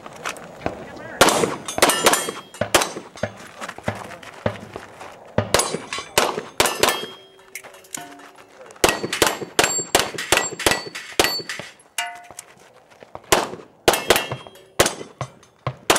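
Handgun shots fired in quick strings at steel targets, each hit ringing the struck steel plate. The shots come in clusters of several, with brief pauses between them.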